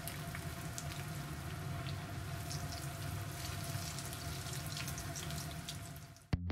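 Hot oil sizzling and bubbling steadily around Korean corn dogs, crusted in panko and diced potato, as they deep-fry in a pan, with faint scattered crackles. The sizzle fades out near the end and music comes in.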